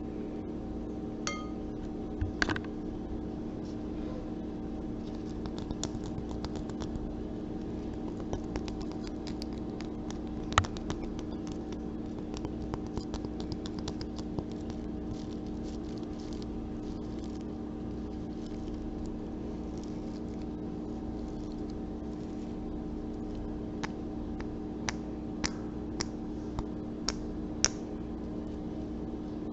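Soft clicks, taps and light scratching of small objects being handled close to the microphone, over a steady low hum. A few sharper clicks stand out, one about ten seconds in and several near the end.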